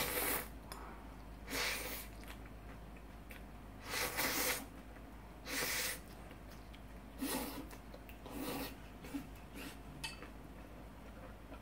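A person slurping and sucking in udon noodles from a bowl held to the mouth, six or seven short hissing slurps a second or two apart.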